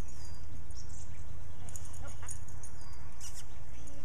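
Faint bird chirps, short and high, repeating now and then over a steady low rumble.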